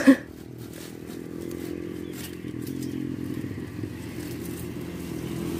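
Engine of a motor vehicle passing on the road, heard as a steady low hum that slowly grows louder.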